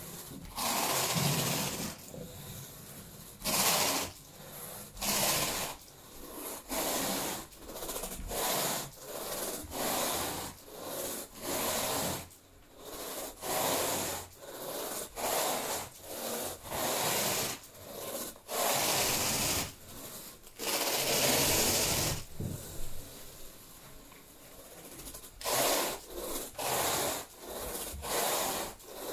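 A carpet rake dragged through thick carpet pile, each stroke a brushing rasp, in a steady run of strokes about one a second with a few longer drags partway through.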